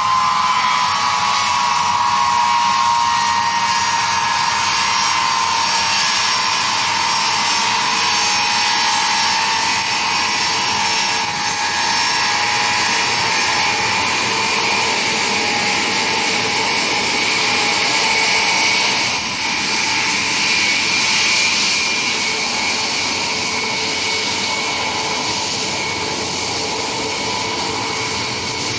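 Ilyushin Il-76T's four Soloviev D-30KP turbofans running at low power as the jet taxis past: a steady high whine over a rushing hiss. The whine's pitch slides down a little in the first couple of seconds and then holds.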